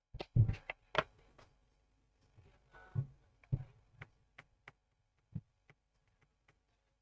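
Small tools and parts being handled on a repair bench: a quick run of clicks and knocks in the first second or so, two more knocks about three seconds in, then scattered faint single ticks.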